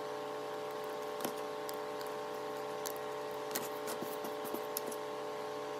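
Light, scattered clicks and taps of thin laser-cut wooden panels being handled and set down on a cutting mat, about half a dozen, the sharpest about a second in. A steady background hum runs underneath.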